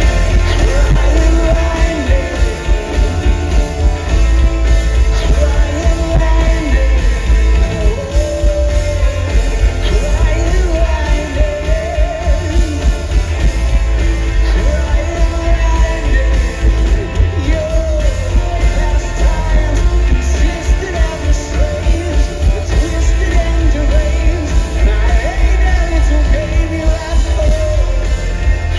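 Rock band playing live at full volume: heavy, pulsing bass and drums under a wavering melody line.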